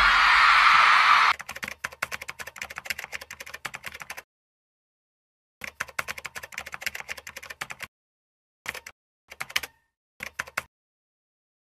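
After about a second of loud, steady noise that cuts off suddenly, computer keyboard typing: runs of rapid key clicks, with pauses between the runs and a few short bursts near the end.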